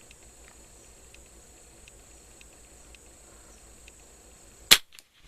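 A single shot from a Martini Mk3 rimfire rifle: one sharp crack near the end, over faint steady insect chirring.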